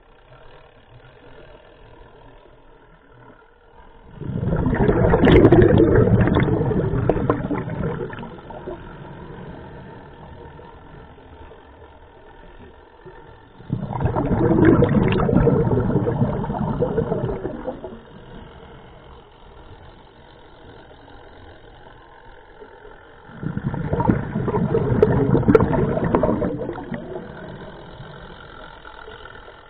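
Scuba regulator exhaust bubbles from a diver's exhalations underwater: three loud bursts of bubbling about ten seconds apart, each starting suddenly and fading over a few seconds, with another starting at the very end and a quieter hiss between breaths.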